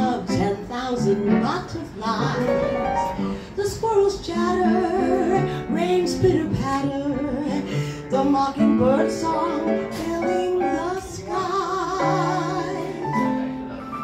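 A woman singing a jazzy song into a microphone with live piano accompaniment, her held notes wavering with vibrato.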